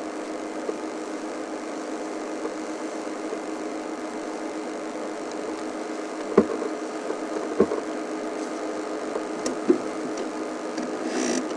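A steady mechanical hum, with three short sharp clicks in the second half.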